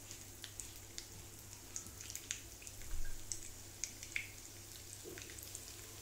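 Oil spitting around a semolina-coated fish steak shallow-frying in a pan: faint sizzling with scattered, irregular sharp pops. There is a soft low thump about halfway through.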